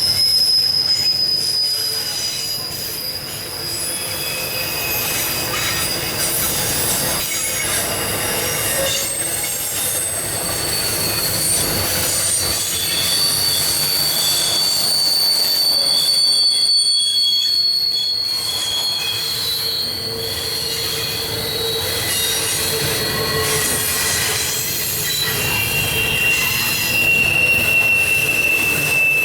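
Intermodal freight cars rolling past, their steel wheels squealing in long, high tones that slide slowly lower, over the steady rumble and clatter of the train.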